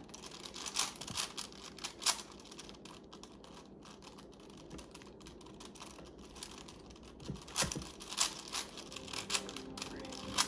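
Plastic Rubik's cube layers being turned by hand: irregular clicking and clacking, with a few louder clacks about eight seconds in.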